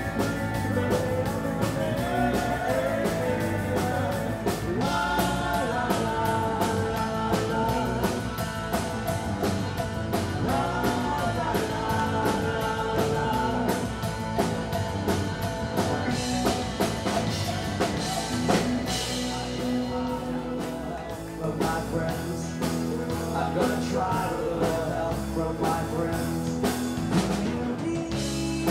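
Live rock band playing, with a male lead singer over drums and electric guitar.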